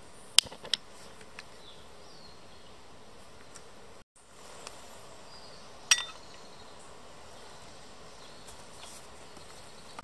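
Sharp metallic clinks of camp cookware: two close together near the start, and a louder one with a brief ring about six seconds in, over a steady background hiss.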